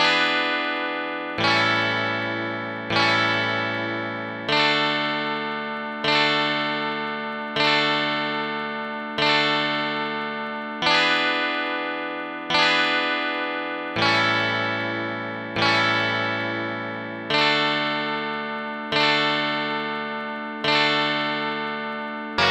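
Heavenly Chords app playing synthesized plucked-string chords, one struck about every one and a half seconds. Each chord rings and fades before the next, and the chords change as the sequence goes on.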